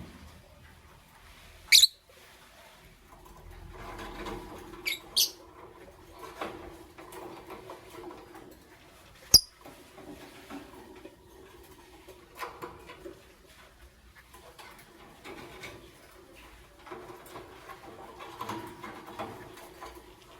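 Pet lovebirds giving a few short, shrill chirps, one at about two seconds and a quick pair at about five, with a sharp click near the middle. Softer scratchy twittering and rustling fill the gaps.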